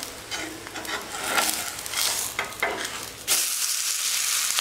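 Steel spatula scraping and tapping on a nonstick pan as an uttapam is turned over. About three seconds in, a steady sizzle of frying oil starts suddenly, the vegetable-topped side now frying face-down.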